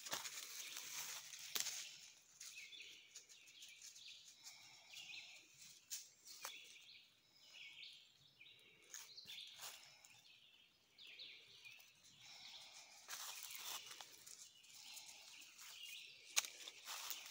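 Faint footsteps on the woodland floor, with scattered cracks and crackles of twigs and dry leaves underfoot, over quiet outdoor background with faint bird calls.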